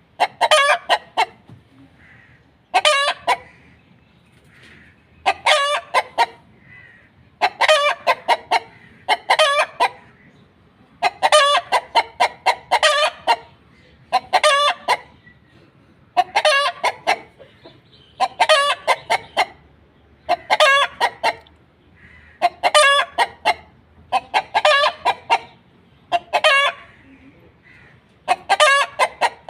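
Chicken clucking in quick bursts of several sharp clucks, a burst about every two seconds.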